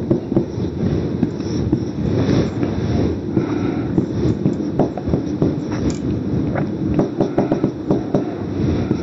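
Marker writing on a whiteboard: short squeaks and scattered taps as arrows and lines are drawn, over a steady low rumbling noise.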